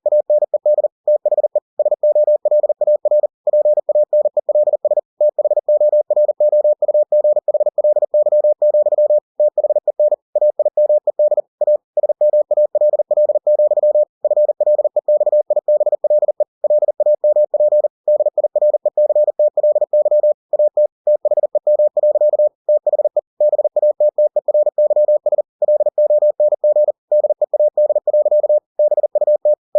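Computer-generated Morse code (CW) at 40 words per minute: a single pure beep tone keyed on and off in rapid dots and dashes, with short silent gaps between letters and words, spelling out running text.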